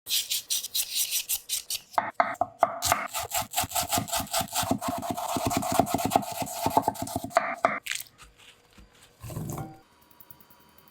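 A kitchen blade scraping through raw potato in rhythmic rasping strokes, about three a second at first, then faster and denser from about two seconds in, stopping near the eight-second mark. A dull thump follows about a second later.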